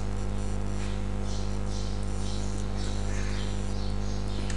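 Steady electrical mains hum with a low buzz and faint hiss.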